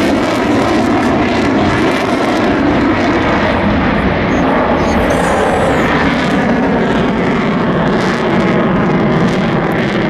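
Loud, steady engine noise of a fixed-wing display aircraft in flight.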